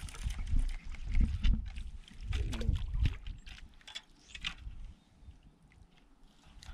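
Scattered knocks and clicks of fishing gear and hull in a small boat, over low rumbling bumps; it thins out to a few faint clicks after about five seconds.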